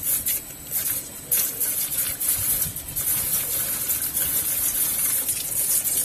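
Hot screws discharging from a tiltable rotary quenching furnace into the quench tank: a steady hiss and sizzle with frequent irregular crackles as the parts hit the liquid.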